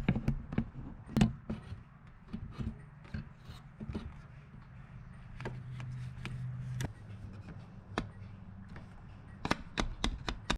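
Nissan Z24 2.4-litre four-cylinder idling with a low hum that swells for about a second near the middle, in keeping with the truck's rough, surging idle. Scattered sharp clicks and knocks sound over it throughout.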